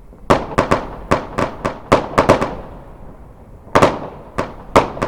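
Fireworks going off: a rapid, irregular string of sharp bangs, about nine in the first two and a half seconds, then a short lull and three more, each trailing off in a brief echo.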